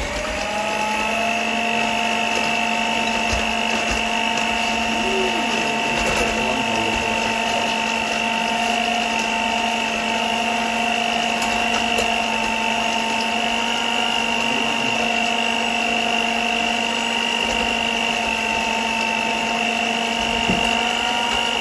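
Electric hand mixer running at a steady speed, its beaters whisking brownie batter in a glass bowl: an even, constant motor whine.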